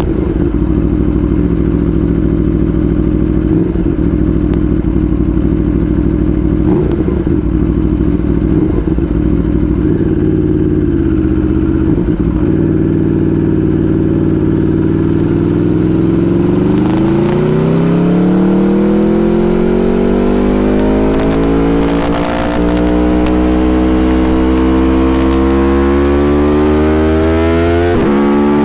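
Aprilia Tuono Factory motorcycle engine running at a steady note, then accelerating from about halfway, its pitch rising steadily with a brief break, typical of a gear change, about three-quarters of the way in and another near the end.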